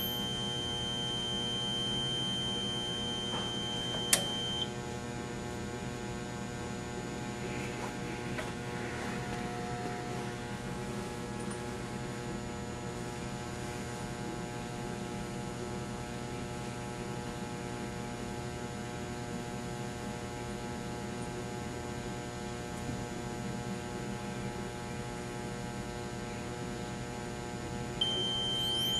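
Steady electrical hum from the surge test equipment and power supply under a 6,000-volt surge test. A high steady tone cuts off just after a sharp click about four seconds in, and another sharp click near the end brings the tone back.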